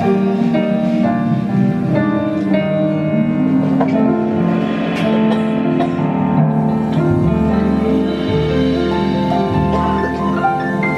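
Small jazz group playing a slow ballad live: trumpet over piano, jazz guitar and double bass, with long held notes over sustained chords.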